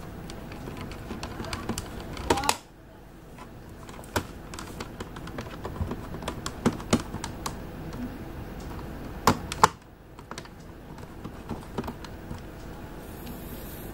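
Scattered plastic clicks and taps from the Jumper T18 Pro radio controller's housing as it is handled and pressed together, with louder sharp clicks about two seconds in and again a little after nine seconds.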